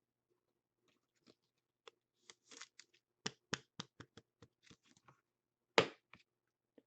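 Trading cards being handled: faint, scattered clicks and rustles as cards are slid and set down, with one sharper tap nearly six seconds in.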